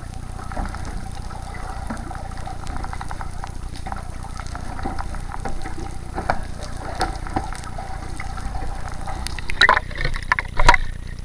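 Underwater sound picked up through a camera's waterproof housing: muffled water movement with a steady low rumble and many small clicks and crackles. Near the end come several louder splashes as the camera breaks the surface beside the boat's hull.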